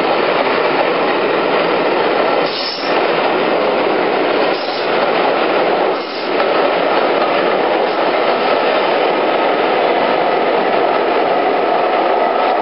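Passenger coaches running past at speed: a loud, steady rumble and rattle of wheels on rail, with short dips about three, five and six seconds in.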